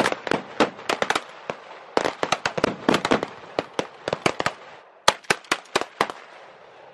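Several shotguns firing quick, overlapping shots at thrown clay targets. The shots come in three volleys with short pauses between them.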